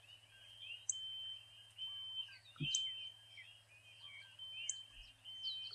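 A house smoke alarm giving a high, steady beep about once a second, with birds chirping around it. A single dull knock comes about halfway through.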